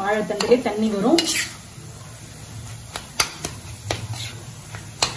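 A voice for about the first second, then a steel spatula scraping and clinking against a black iron kadai while stirring a dry, crumbly stir-fry of banana stem and ground lentils, with sharp clicks every half second or so.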